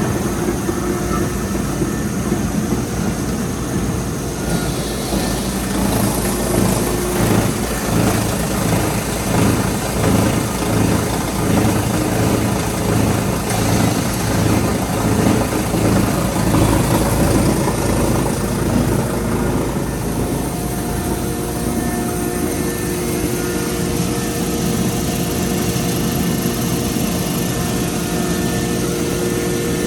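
Wire chopping line running as it processes tin-coated copper wire: a 25 horsepower shredder and granulator with conveyor and C1 separator, giving a loud, continuous machine din with steady hums. It grows uneven and pulsing through the middle, from about six to eighteen seconds in.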